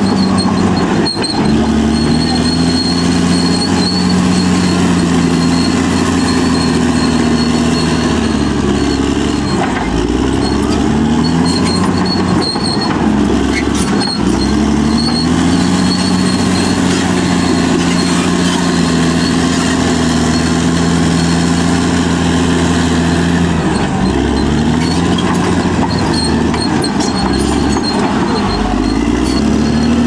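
Caterpillar D6R XL bulldozer's diesel engine running hard close by, its note dipping and recovering several times as the machine pushes into the bank, with the clatter of its steel tracks.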